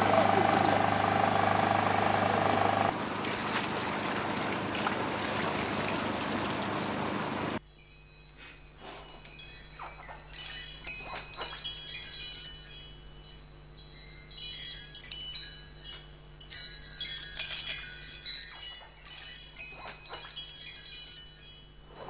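Fishing boat's engine hum with deck and water noise, cutting off abruptly about seven seconds in. A high tinkling of chimes in irregular clusters follows, over a faint low drone.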